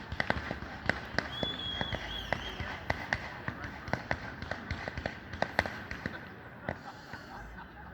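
Fireworks going off in quick, irregular pops and cracks, with a short high whistle about a second and a half in.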